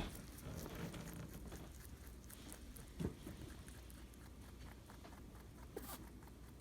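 A rabbit chewing her food: faint, rapid crunching clicks, with a soft thump about three seconds in.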